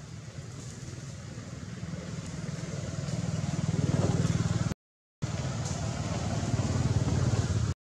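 A motor vehicle engine running nearby, a low pulsing drone that grows louder over the first four seconds. The sound cuts out briefly twice.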